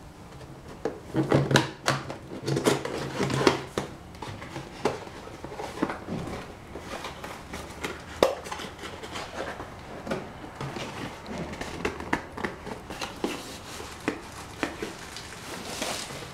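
A cardboard graphics-card box and its packaging being opened and handled: a burst of loud scraping and rubbing in the first few seconds, then scattered light taps, knocks and rustles as the contents are lifted out.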